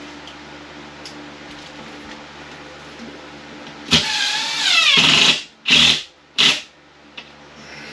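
Power drill driving drywall screws: a motor whine of about a second and a half, its pitch dipping under load and then recovering, followed by two short bursts from quick trigger pulls.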